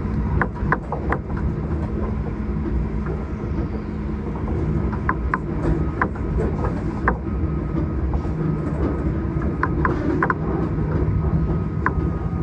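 Alstom Citadis X05 light rail tram heard from inside while running: a steady low rumble with scattered sharp clicks at irregular moments.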